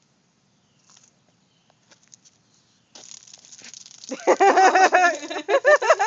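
A cicada's distress buzz. It starts as a high hiss about three seconds in and becomes a loud, warbling, pulsing call about a second later.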